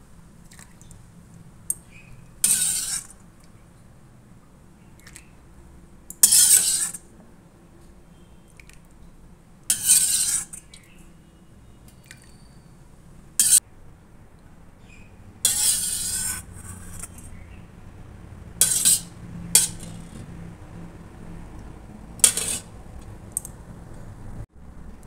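A steel spoon scraping and clinking against the inside of a steel pot as milky kheer is scooped out, in short separate strokes every two to four seconds, about eight in all.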